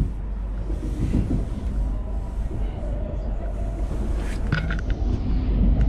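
Passenger train running along the track, heard from inside the carriage as a steady low rumble of wheels on rails. About four and a half seconds in, a brief high squeal with a few clicks.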